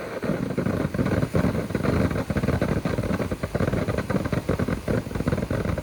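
Firework fountain burning: a steady rough spray noise dense with rapid irregular crackles as it throws out stars.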